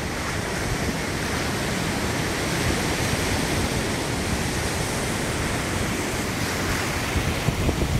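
Small waves washing over shallow water at the shoreline, a steady rushing hiss, with wind buffeting the microphone in gusts near the end.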